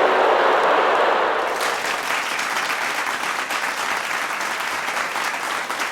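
Audience applause, many hands clapping in a dense patter, coming in about a second and a half in and taking over from a loud, dense steady noise.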